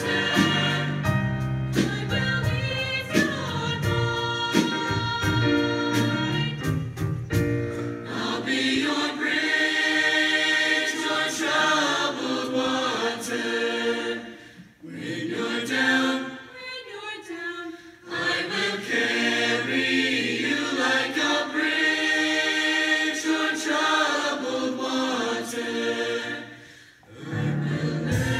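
A choir singing in harmony with musical accompaniment; the sound dips briefly twice between phrases.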